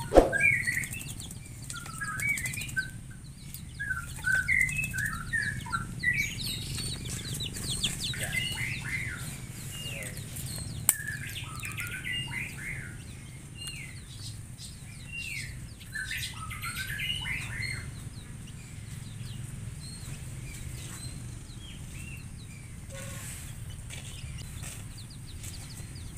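Small birds chirping: many short chirps in quick runs, thinning out after about eighteen seconds, with light fluttering splashes from a bird bathing in a shallow water basin.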